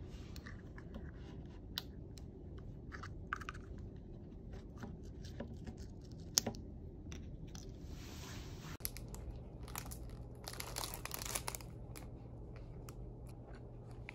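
Light clicks and taps as a plastic juice bottle's cap is twisted off and set down on a table, then about a second of plastic wrap crinkling around ten seconds in.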